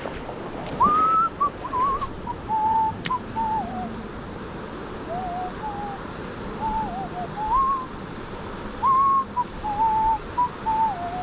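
A person whistling a tune in short wandering phrases, over the steady rush of a stream.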